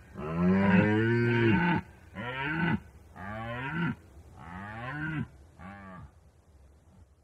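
Red deer stag roaring in the rut: one long, deep roar followed by four shorter roars, each weaker than the last.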